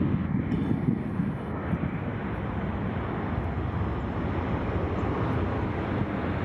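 Steady, low rumbling roar of an Airbus A320-232's twin IAE V2500 jet engines as the airliner rolls away down the runway on its take-off run.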